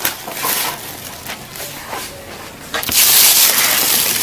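Rustling and handling noise close to the microphone: light crinkles and clicks, then loud rustling from about three seconds in.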